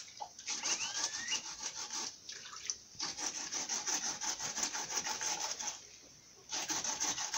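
Arrowroot rhizome being grated by hand over a basin of water: quick, even rasping strokes that break off briefly about two seconds in and again around six seconds.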